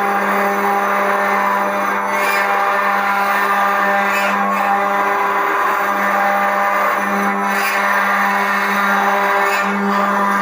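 CNC router spindle running and carving wood, a steady whine with a brief swish every two to three seconds as the cutter passes through the work.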